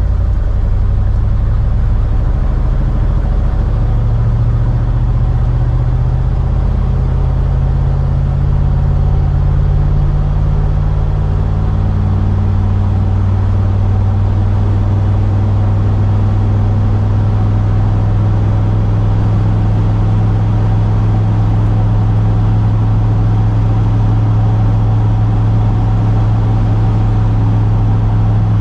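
Engine and exhaust of a 1973 Ford F350 pickup heard from inside the cab while driving, with road noise. The engine note climbs gradually over the first several seconds as the truck gathers speed, then holds steady at a cruise.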